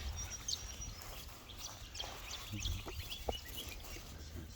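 Quiet rural outdoor ambience: scattered short bird chirps and small scuffs and clicks over a low wind rumble on the microphone.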